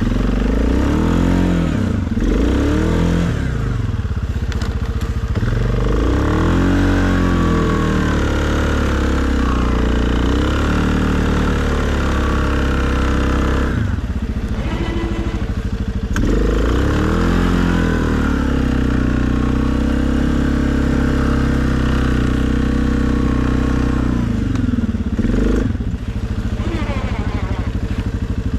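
2020 Suzuki KingQuad ATV engine running under load while plowing snow, revving up and easing off again and again, with a steadier stretch of running in the later part.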